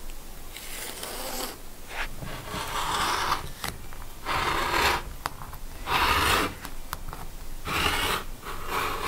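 Hands and a clear acrylic quilting ruler sliding and scraping over quilted fabric on a cutting mat, in about half a dozen strokes each under a second long. Near the end a rotary cutter is run along the ruler, slicing through the fabric.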